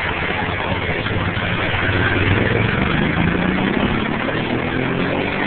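An engine running with a low hum over steady noise. It grows louder about two seconds in and then rises in pitch.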